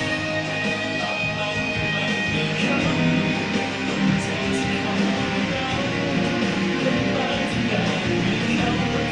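Rock song with strummed guitar played loudly in a room, picked up by a smartphone's built-in microphone as a recording test.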